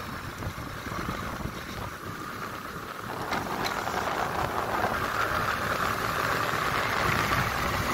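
Motorcycle riding along, engine running under steady wind and road noise, getting louder about three seconds in.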